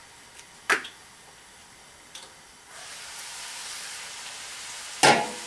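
A sharp click about a second in; then the sizzle of spinach and ground beef frying in the skillet rises as the lid comes off and holds steady. Near the end the metal pan lid is set down with a loud clank and a brief ring.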